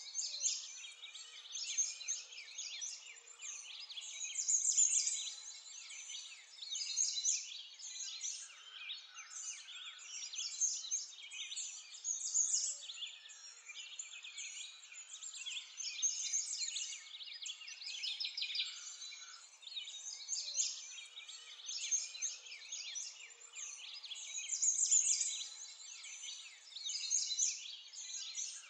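Dense chorus of many small birds chirping and twittering without a break, high-pitched, swelling and easing every few seconds.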